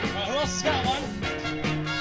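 Background music: an upbeat swing-style tune.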